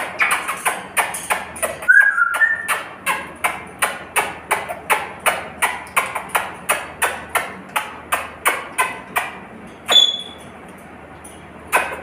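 A pet lory dancing on its wooden cage perch, making a quick, even tapping about three times a second. There is a short two-note chirp about two seconds in, and a brief high call near ten seconds, when the tapping stops.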